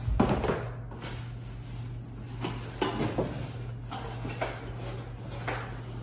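Cardboard packaging being handled: a thud just after the start as one cardboard box is set down on top of another, then scattered knocks, scraping and rustling as a cardboard insert is pulled out of a large box.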